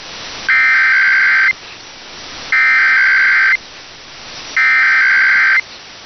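Emergency Alert System SAME header: three one-second bursts of buzzing digital data tones, about a second apart, over AM radio. These bursts encode the alert and open a Required Weekly Test.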